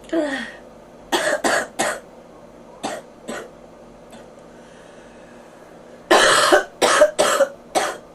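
A person with bronchitis coughing in bouts. It opens with a short vocal sound falling in pitch, then three coughs, two small ones, and near the end a fit of four coughs, the first the longest.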